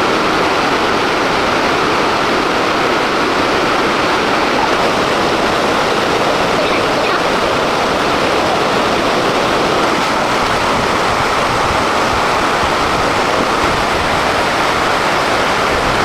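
Steady, loud rush of water, like a waterfall or fast stream, unbroken and unchanging.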